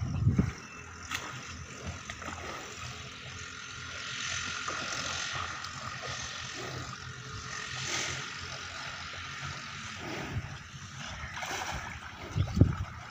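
Water sloshing and splashing as a herd of water buffalo wade and shift about in a muddy pond.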